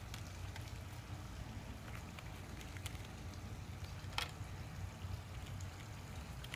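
Faint scattered clicks of small plastic markers being taken out of their packaging, one a little sharper about four seconds in, over a steady low background hum.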